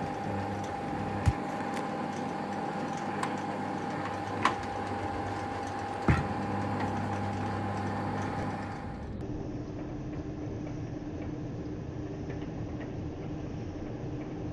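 Bench drill press motor running steadily while drilling small holes through a plastic bucket, with three sharp knocks in the first half. About nine seconds in the sound changes abruptly to a different steady drill press hum.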